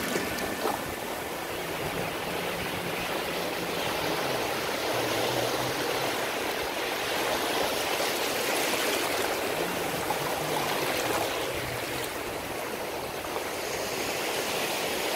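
Small sea waves breaking and washing up a sandy shore: a steady rushing, fizzing surf that swells and eases as each wave runs in.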